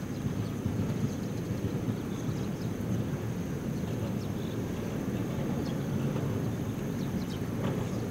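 Low steady rumble of a distant Ohmi Railway 800-series electric train approaching across open fields, with a faint steady high whine above it.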